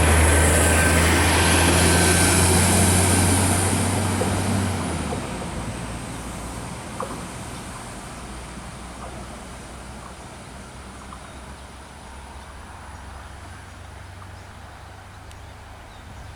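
Diesel train passing close by: a loud engine drone and a high whine that both stop about five seconds in, after which the sound fades steadily as the train moves away.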